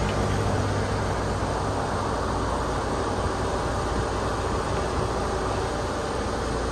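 Steady highway vehicle noise, an even rush with a low hum that fades out about two seconds in.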